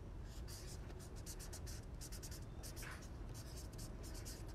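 Faint, quick scratchy brushes of fingertips swiping and tapping on a touchscreen close to the microphone, several strokes a second in short runs, over a low steady hum.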